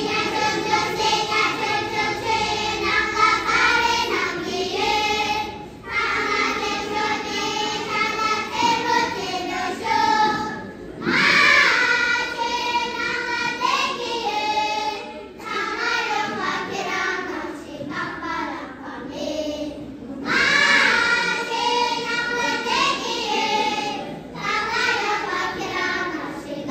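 A group of children singing together in unison, line by line, with short breaths between phrases.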